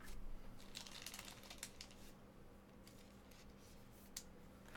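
Faint crinkling of a foil trading-card pack wrapper for about a second, followed by a few light clicks and taps.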